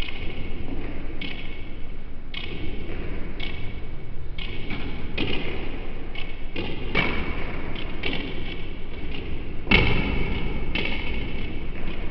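Table tennis ball clicking off the table and rubber paddles in a rally of serve and return, a sharp hit about every half second to second, with the loudest hit near the end, over the steady hum of the hall.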